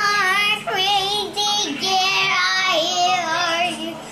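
A young girl singing a made-up song in a high voice, in several short phrases with the pitch sliding up and down.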